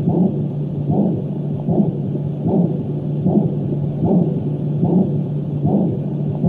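Douni white noise sound machine playing one of its built-in sounds through its speaker: a steady low hum with a soft rhythmic pulse repeating a little faster than once a second.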